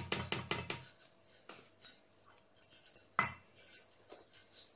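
A cup knocking and scraping against the rim of a steel mixing bowl as wheat flour is tipped out of it: a quick run of taps in the first second, then one sharper knock about three seconds in.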